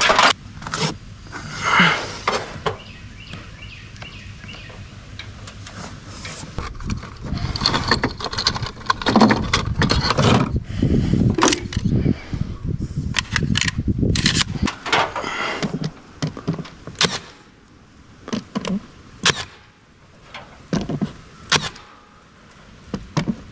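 Tools clattering as they are handled in a truck's metal tool bin, then a cordless staple gun firing staples into a wooden soffit, several sharp shots about two seconds apart near the end.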